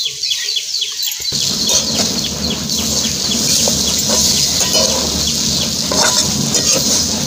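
Metal spatula stirring and scraping a frying dal and chilli mixture in a wok, a steady rough noise that starts about a second in. Birds chirp quickly throughout.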